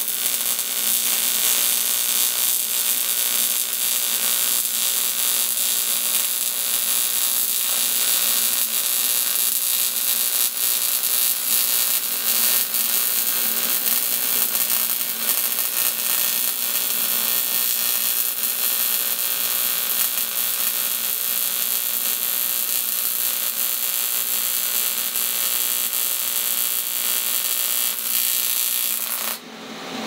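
An AC TIG welding arc from an AHP AlphaTIG 200X on 1/8 in aluminium flat stock, making a steady buzzing hiss as the bead is laid with hand-fed filler rod. The arc cuts off about a second before the end.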